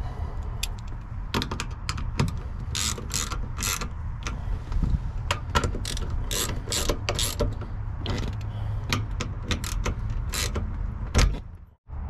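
Socket ratchet wrench clicking in short runs as the mounting bolts of a T-handle gear shifter are tightened down. The clicking cuts off suddenly near the end.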